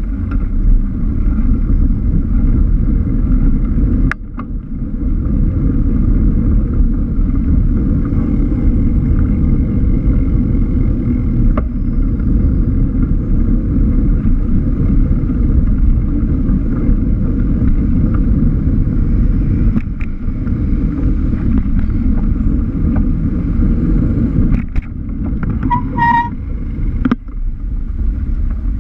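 Wind buffeting a bike-mounted GoPro's microphone while cycling in city traffic, a steady heavy rumble mixed with road and vehicle noise. A few short clicks, and a brief high ringing tone near the end.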